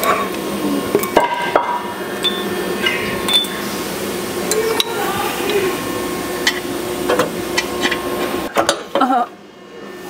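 Scattered metallic clinks and knocks as a brake caliper and front suspension parts are handled and shifted under a lifted Ineos Grenadier, over a steady hum.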